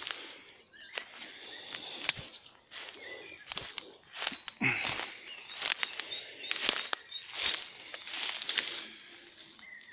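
Footsteps and rustling from someone walking outdoors, a series of irregular crunching knocks, with birds chirping in the background.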